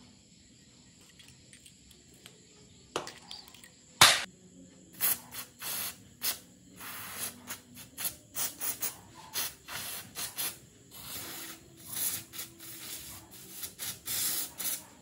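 Aerosol spray can fired through a straw nozzle onto a rusty hydraulic bottle jack in repeated hissing bursts of varying length, starting about five seconds in. A single sharp knock comes just before the spraying starts.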